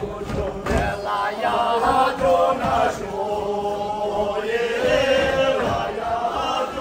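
A group of voices chanting together, with long held notes that waver and glide in pitch.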